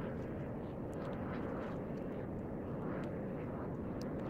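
Steady low rumble of wind buffeting the microphone by open water, with one faint click near the end.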